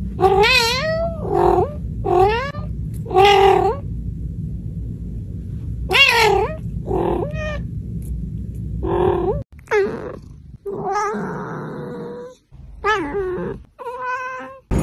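A domestic cat meowing repeatedly in drawn-out calls with a wavering pitch, about seven calls; partway through the sound cuts to another cat meowing in shorter calls.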